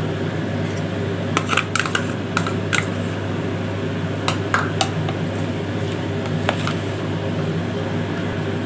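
Light plastic clicks and taps as curd is scraped from a plastic cup into a plastic bowl of chopped vegetables, then stirred with a plastic spoon: a cluster of taps in the first few seconds, a couple more near the middle and one later. A steady low hum runs underneath.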